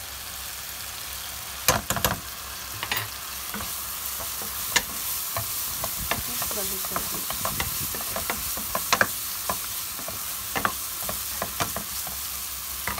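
Sliced mushrooms sizzling in a nonstick frying pan while a wooden spatula stirs them, with scattered clacks and scrapes of the spatula on the pan, the loudest about two seconds in.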